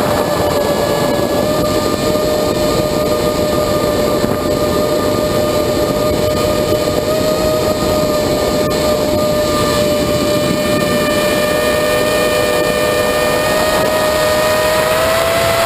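Flite Test FT210 quadcopter's electric motors and propellers whining steadily in flight, heard from on board, with air rushing past. The pitch rises a little near the end as the throttle comes up.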